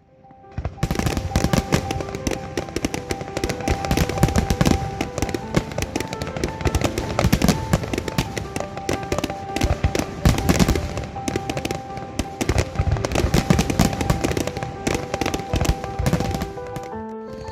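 Fireworks display going off in rapid, dense bangs and crackling, with music playing over it. The bangs start about half a second in.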